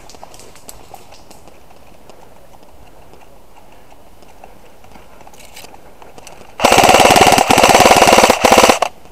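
Airsoft electric rifle firing full-auto, a loud rapid burst of about two seconds with two very short breaks, starting about two-thirds of the way in.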